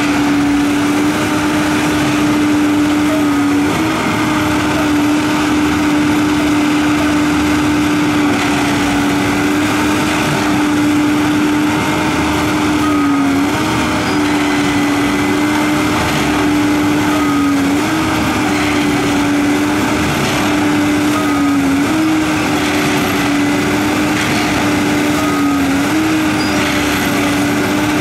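Harsco 6700SJ2 rail tamping machine running steadily with a strong engine and hydraulic hum. The hum's pitch sags briefly several times as the tamping tools work the ballast.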